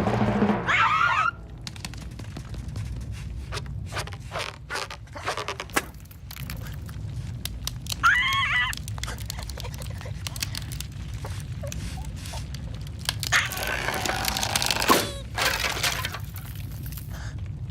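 Cartoon sound effects with no dialogue: a short wordless character squawk about a second in and another near the middle, a run of small clicks in between, and a longer rushing noise near the end.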